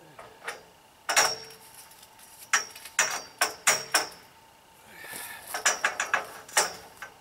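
Metal tent-frame pipes clanking against each other and in their fittings as a bar is worked into place: a string of sharp metallic knocks with a ringing tone, and a short sliding scrape about five seconds in.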